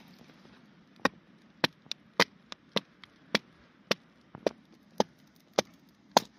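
Large bushcraft knife chopping into a wooden stick held upright against a rock, about a dozen sharp strikes roughly every half second, starting about a second in, with a few lighter taps between them.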